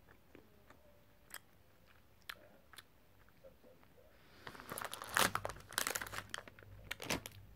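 Faint chewing of a piece of chocolate with a few small mouth clicks. From about four and a half seconds in, a plastic-wrapped chocolate packet is handled and crinkles loudly.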